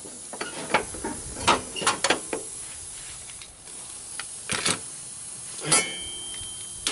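Scattered metallic clicks and clinks of a steel mower blade and its bolt being handled and fitted onto the blade spindle under a mower deck, with a slightly louder clatter near the end as a socket on a power driver is set on the blade bolt.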